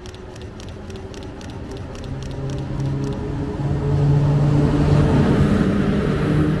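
NS Class 1700 electric locomotive hauling an intercity train in along the platform: a low steady hum and rolling noise that grow louder as it draws near and passes. A faint high ticking, about three to four a second, stops about three seconds in.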